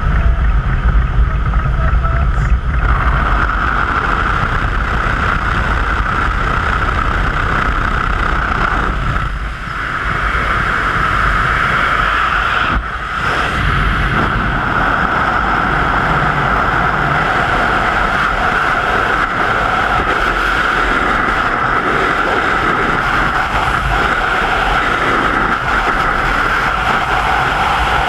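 Loud, steady rush of wind on the camera through a tandem skydive, from the aircraft cabin into freefall, with short dips in the roar about ten and thirteen seconds in.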